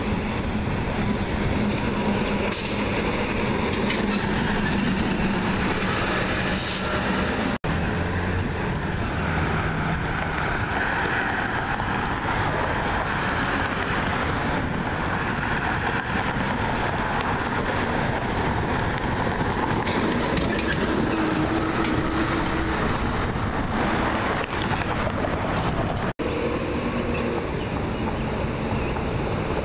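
Garbage truck's diesel engine running as it drives past on a city street, within steady road traffic noise. There are two short hissing bursts, about two and a half and seven seconds in.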